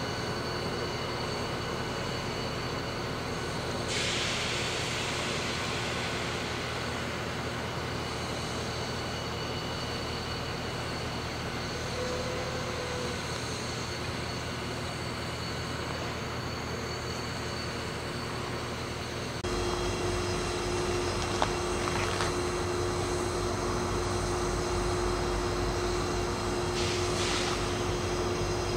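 Diesel locomotive engine running steadily, with a burst of hiss about four seconds in. About two-thirds of the way through the sound shifts abruptly to a heavier, deeper drone with a stronger held tone.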